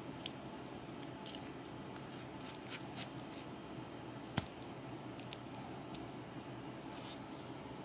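A series of small, irregular clicks and ticks over a steady low background hiss, with one sharper click about four and a half seconds in.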